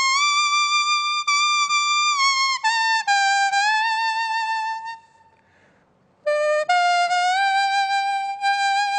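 A banyan leaf blown as a reed instrument, playing a slow melody of held, clear notes with a bright tone like a trumpet. The phrase stops about five seconds in and the playing picks up again about a second later.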